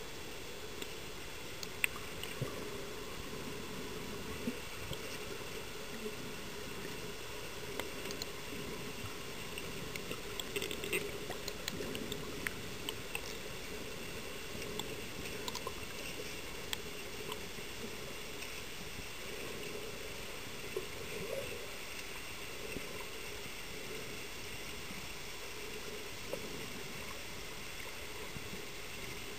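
Steady, muffled water noise as picked up by a submerged camera, with scattered faint clicks and taps.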